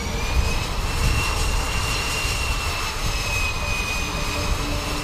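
MD 530-series light helicopter in flight: steady low rotor and engine noise under a high turbine whine, which climbs in pitch over the first second or so and then sags slightly.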